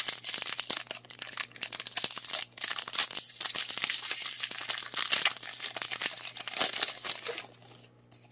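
A Pokémon Shining Fates booster pack's foil wrapper being torn open and crinkled by hand: a dense run of crackles and rips that stops about seven and a half seconds in.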